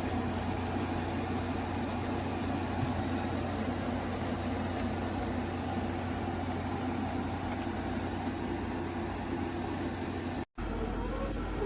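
Frigidaire FFRA051WAE 5,000 BTU window air conditioner running: a steady fan rush over a low hum. It breaks off sharply about ten seconds in.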